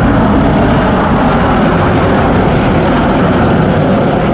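Loud, steady jet noise from the Red Arrows' BAE Hawk jet trainers flying their display.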